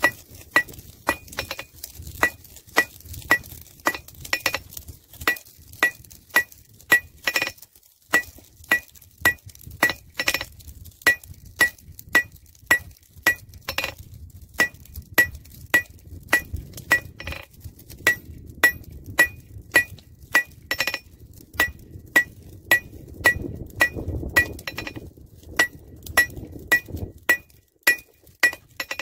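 Hand hammer striking hot rebar on an anvil, steady blows about two a second, each with a bright ringing clink from the anvil, as the bar's end is drawn out into a taper. There is a brief break in the blows about eight seconds in.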